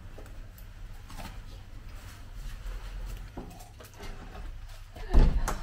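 Soft rustling and handling of padded winter clothing as coats are unzipped and taken off, with small knocks. About five seconds in comes a much louder, heavy thump.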